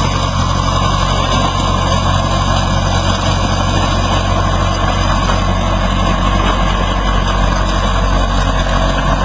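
Skid steer engine running steadily at a constant pitch, with a steady whine above it.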